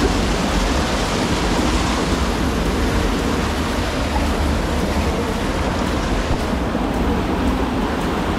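Fast-flowing river water rushing steadily over and between boulders.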